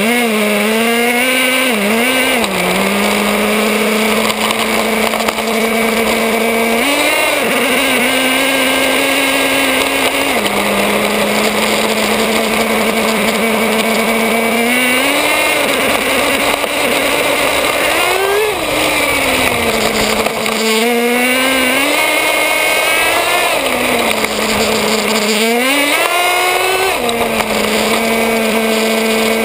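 Traxxas Nitro 4-Tec's small nitro (glow-fuel) engine, heard from a camera on the car's body, running at a high-pitched buzz and revving up and down again and again as the car is driven, over the hiss of its tyres on asphalt.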